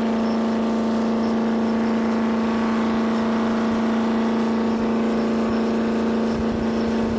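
Jet boat engine running steadily under way, a constant drone held at one pitch, with some low rumble near the end.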